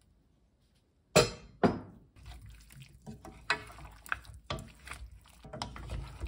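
Wooden spoons stirring and tossing saucy braised pork ribs in a wok, with irregular knocks and scrapes against the pan. Two loud knocks come about a second in.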